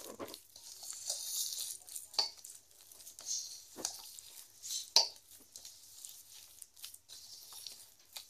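A hand kneading and squeezing soft dough in a steel bowl: irregular wet squishing and rustling, with a few sharp clinks against the bowl, the loudest about five seconds in.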